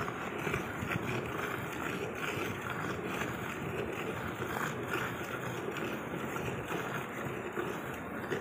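A cow being hand-milked: streams of milk squirting from the teats into a steel pail half full of foamy milk, a steady frothy hiss.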